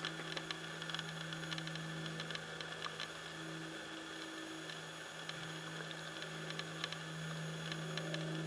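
A steady low hum with faint scattered clicks.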